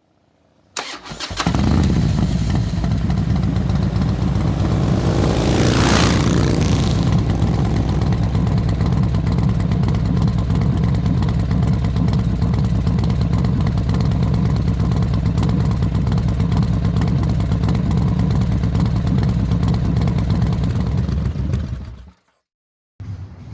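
Harley-Davidson X440's single-cylinder engine being started about a second in, then idling steadily, with one blip of the throttle about five to six seconds in. The sound cuts off abruptly shortly before the end.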